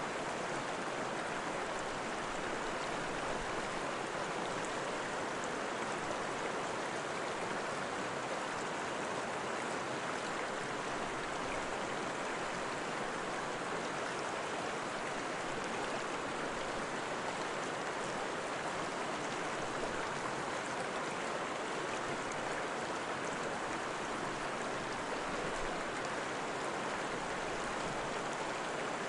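Steady running water, a continuous even rush with no breaks or changes.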